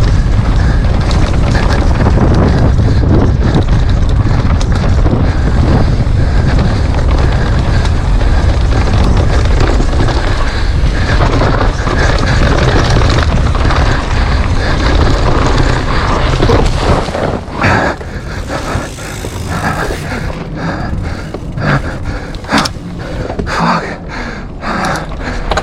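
Wind rushing over the microphone and a downhill mountain bike rattling over rough trail at speed. A little over two-thirds of the way in, the rushing drops away and sharp knocks and clicks from the bike over bumps stand out.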